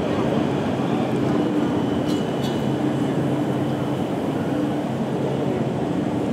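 Sydney light rail tram moving along the street, a steady low hum under street noise, with two faint clicks about two seconds in.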